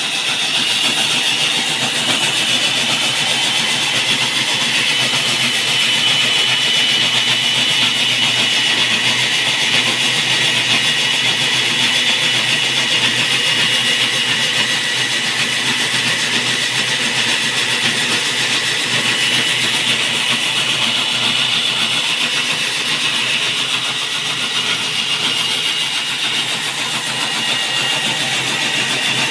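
Diamond core drill boring through a concrete slab: the motor runs with a steady high whine over a continuous grinding noise, easing off slightly near the end.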